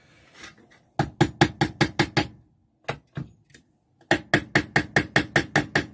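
Small hammer tapping panel pins through thin tin-can metal into a block of wood, in quick runs of sharp, ringing taps at about seven a second. There is one run about a second in, a couple of single taps, then a longer run near the end.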